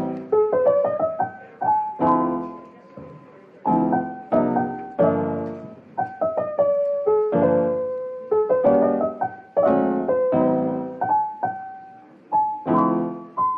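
Background music: a piano playing a gentle melody over chords, each note struck and then fading.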